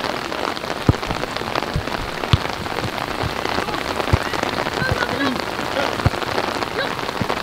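A steady noisy hiss with short dull thuds scattered irregularly through it, and faint distant shouts.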